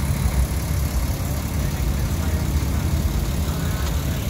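Crane truck's engine idling steadily, a low even hum, while its truck-mounted crane holds the load.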